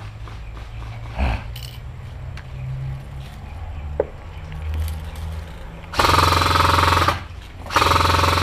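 Airsoft rifle firing two long full-auto bursts, each about a second long, with a short pause between them.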